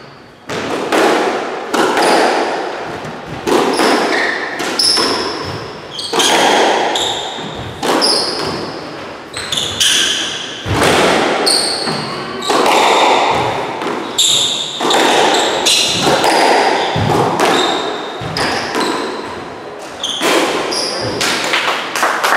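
Squash rally: the rubber ball cracking off rackets and the front wall, about one hit a second, each hit echoing in the walled court. Short high squeaks of court shoes on the wooden floor come between the hits.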